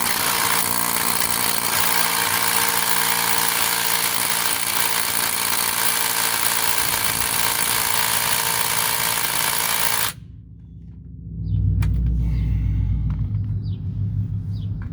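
Ridgid cordless impact wrench hammering continuously on a lug nut, tightening it for about ten seconds before cutting off suddenly. A second and a half later a loud low rumble starts and runs on with a few clicks.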